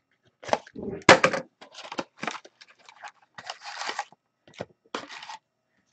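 A sealed Artifacts hockey card box being torn open and its contents handled: irregular crinkling, tearing and rustling of wrapping and cardboard.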